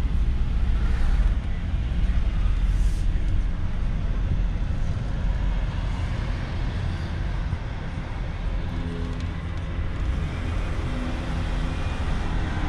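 Van driving slowly, heard from inside the cabin: a steady low rumble of engine and road noise.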